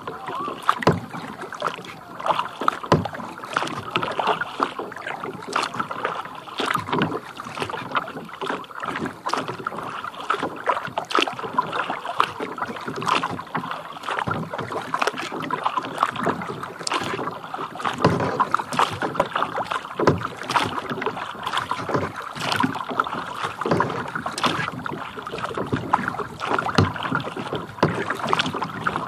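Water lapping and splashing against a kayak's hull as it is paddled across a lake: a steady wash with frequent small, irregular splashes.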